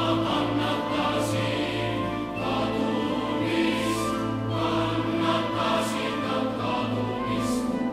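Background choral music: a choir singing slow, sustained chords.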